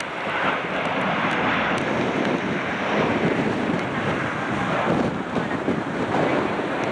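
Jet airliner on final approach, its engines a steady roar, mixed with strong wind buffeting the microphone.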